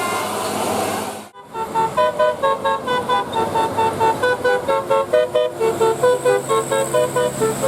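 A bus telolet horn, the multi-trumpet musical air horn of Indonesian buses, plays a quick tune of short chord-like notes, about four a second. Before it, about a second in, a noisy stretch of traffic cuts off abruptly.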